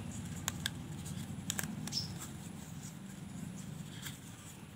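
Young coconut-leaf strips rustling and crackling faintly as they are threaded and pulled through a woven ketupat casing, with a few small sharp clicks in the first two seconds.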